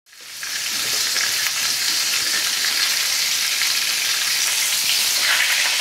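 Food sizzling as it fries: a steady hiss that fades in over the first half second and then holds.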